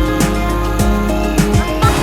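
Background pop music with a steady beat and sustained instrumental chords.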